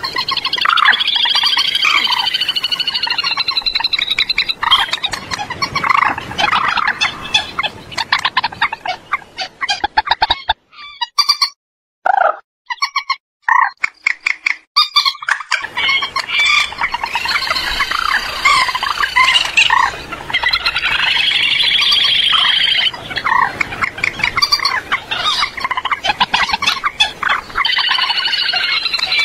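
Common moorhen calls: rapid, repeated croaking and chattering. Near the middle they break off for about five seconds, with only a few short calls, then resume.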